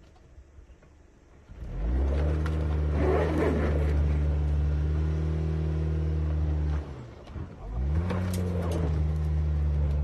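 Subaru Forester's flat-four boxer engine revving hard and held at high revs as the car claws up a steep, loose dirt slope, its spinning tyres digging and scattering dirt and gravel in two rushes. The revs rise suddenly about a second and a half in, fall away briefly near seven seconds, then climb back up.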